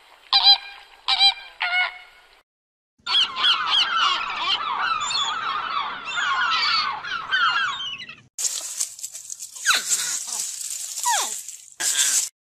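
A few short honking flamingo calls, then a long dense chorus of many birds calling over each other. Near the end comes a hissy stretch with several falling squeals.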